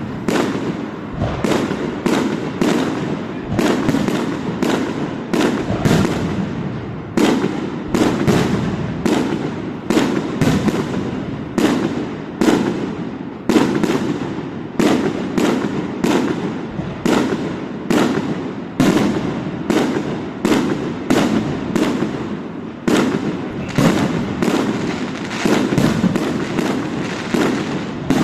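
Fireworks display in full barrage: aerial shells bursting one after another, several bangs a second with no let-up, over a continuous crackle and rumble.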